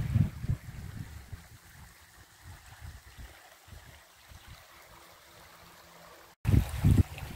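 Shallow stream running over stones, a steady watery hiss. Low rumbles of wind on the microphone come at the start and again near the end, just after the sound cuts out for a moment.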